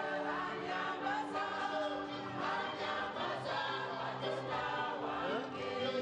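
Choir of men and women singing together, several voices holding notes at once.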